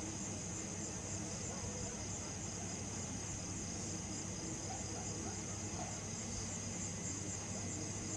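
Crickets chirping in a steady, continuous high-pitched night chorus, over a faint low hum.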